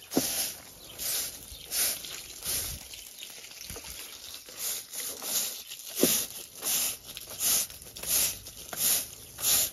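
Stiff-bristled push broom scrubbing wet plastic slatted coop floor panels, in regular back-and-forth strokes about one and a half per second, with a short pause around the middle.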